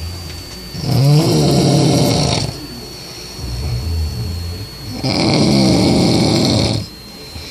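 A man snoring loud: two long snores about four seconds apart, with a quieter low rumble between them.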